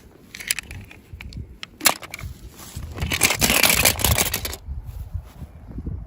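Plastic toy packaging crinkling and crackling as it is handled and opened. There are scattered clicks, a sharp one a little under two seconds in, and a louder stretch of crinkling in the middle.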